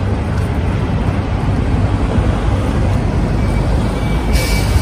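City street traffic: a steady rumble of passing vehicles, with a short hiss near the end.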